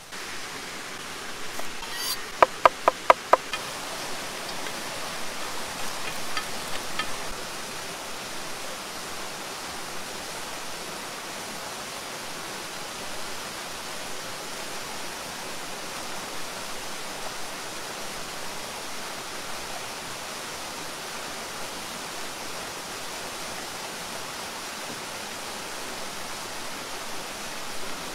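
Waterfall running with a steady rushing noise. About two seconds in comes a quick run of about six sharp clicks.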